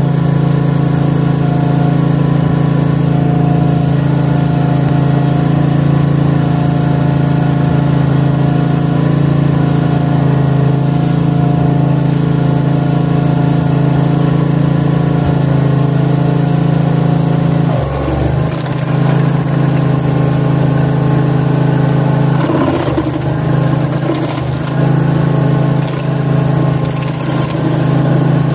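Stump grinder's gasoline engine running steadily at speed. About two-thirds through, its note dips and wavers and a rough, noisy grinding comes in as the cutter wheel is worked into the trunk.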